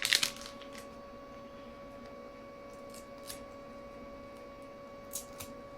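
A few light clicks and taps from a small plastic adapter and its packaging being handled, over a steady faint electrical hum.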